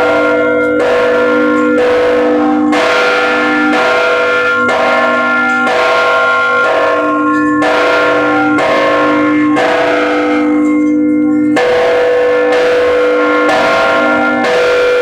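Several church bells rung together, struck one after another about once a second, each stroke ringing on under the next.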